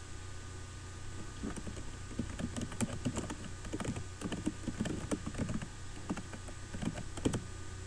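Typing on a computer keyboard, with quick runs of key clicks and short pauses between words. A steady low hum runs underneath.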